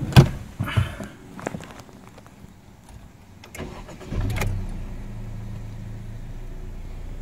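A few knocks and clicks, then a 10th-generation Honda Civic hatchback's engine cranks and starts about four seconds in and settles into a steady idle.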